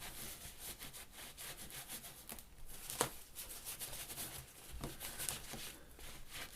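Paint being dabbed and scrubbed onto thin parchment tracing paper: a run of soft, irregular scratchy rubbing strokes, with one sharp click about three seconds in.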